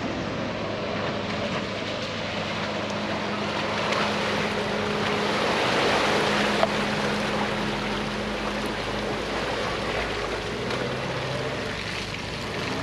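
Off-road 4x4 engine running steadily at low speed, a constant hum under a rough rushing noise that swells slightly midway.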